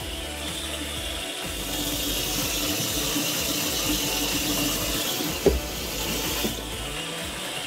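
Water running from a bathtub faucet into a tub, as a steady hiss that stops about a second before the end. A single sharp knock comes shortly before it stops.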